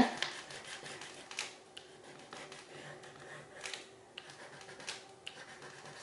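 Wax crayon rubbing on paper, pressed hard in quick back-and-forth strokes to colour an area dark. It makes a faint run of small scratches, with a few sharper ticks.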